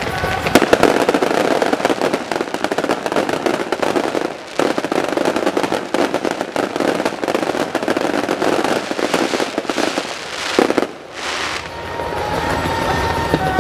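Fireworks barrage going off in a dense, rapid run of crackling and popping bangs, with two short lulls, about four and a half and eleven seconds in.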